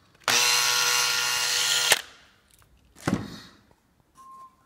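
Hand drill with a 3 mm bit running for about a second and a half as it bores a pilot hole into melamine-faced board, then stopping sharply. A shorter, fainter sound follows about a second later.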